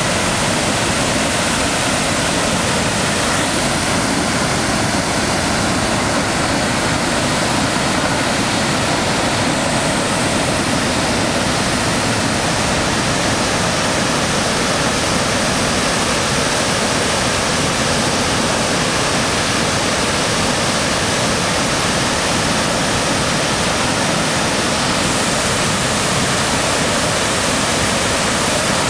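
High Falls of the Pigeon River, Minnesota's highest waterfall, pouring into its rock gorge. Its water makes a loud, steady, unbroken rush.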